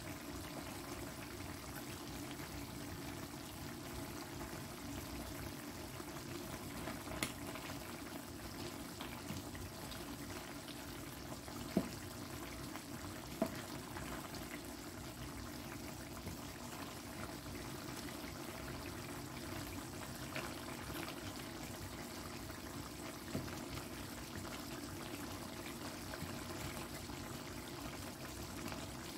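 Pot of chicken curry simmering: a steady bubbling of the sauce, with a few sharp clicks standing out.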